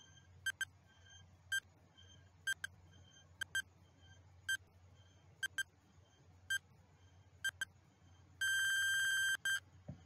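Countdown timer sound effect: a clock ticking about once a second, ending in a ringing alarm buzz that lasts about a second near the end.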